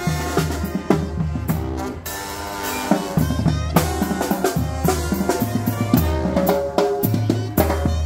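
Oaxacan brass band playing live. A bass drum with a cymbal on top and metal snare drums beat a busy, driving rhythm over held brass notes and a sousaphone bass line.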